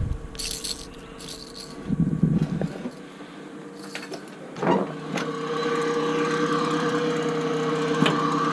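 A couple of short metallic rattles in the first two seconds, then from about halfway a motor starts running with a steady, unchanging hum.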